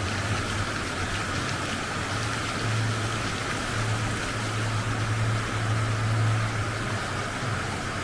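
Fountain water splashing and trickling steadily down a cascade of pools, with a low hum underneath that swells and fades.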